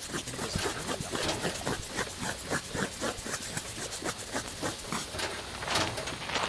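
Steam locomotive sound effect: a rhythmic chuffing of about four strokes a second over a steady hiss, with a louder burst of steam near the end.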